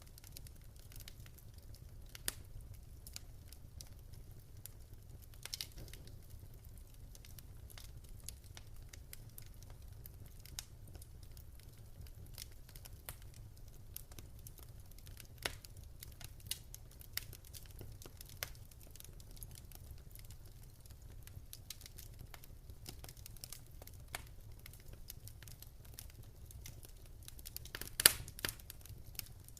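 Wood fire in a fireplace crackling, with irregular small pops and snaps over a low steady rumble; a quick cluster of louder pops near the end.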